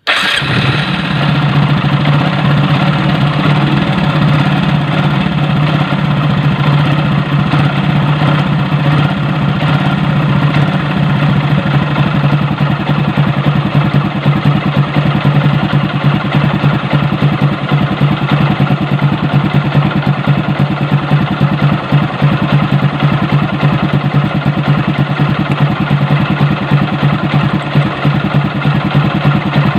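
Hero Honda Glamour's single-cylinder four-stroke engine idling steadily just after an oil change, run so the fresh engine oil circulates through the engine.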